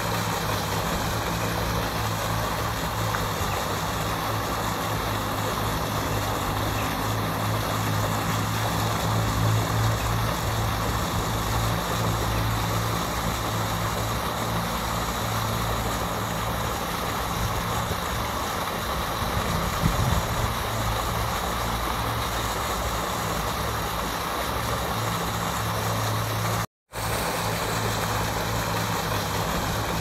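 Floating pond aerator fountain splashing steadily as its jet of water falls back onto the pond, with a steady low motor hum underneath. The sound cuts out for a moment near the end.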